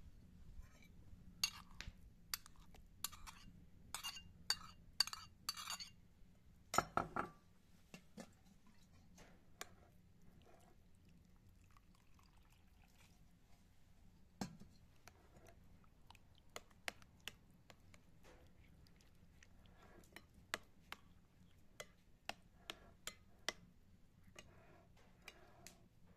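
A metal spoon tapping and scraping against china as tomato paste is scooped from a small bowl, then, after a quieter stretch of faint ticks, a run of light clinks as the spoon stirs the paste with water in a ceramic bowl.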